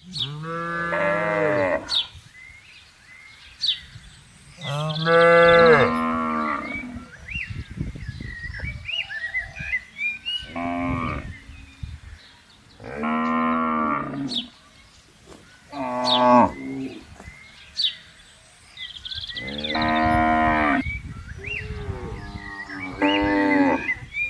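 Cattle mooing repeatedly, about seven long calls each lasting one to two seconds, with short pauses between them.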